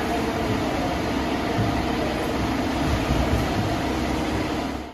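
Steady mechanical din of a motorcycle service workshop: a low hum under a broad hiss, which stops abruptly at the very end.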